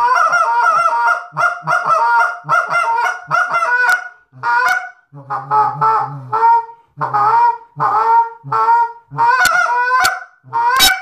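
Short-reed goose call blown in a run of honks and clucks, each note breaking from a low tone up to a higher one. The notes come rapid and close together at first, then, after a short gap about four seconds in, singly about twice a second, with a few sharp clucks near the end. The reed is set to a medium tune that is a little light for the caller.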